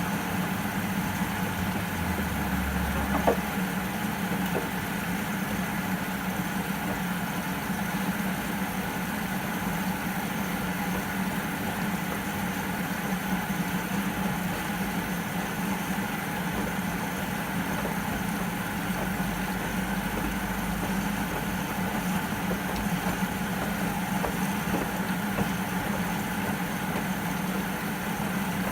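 Whirlpool front-loading washing machine running a synthetics 60° wash cycle: a steady hum with a faint low rumble, and one sharp click about three seconds in.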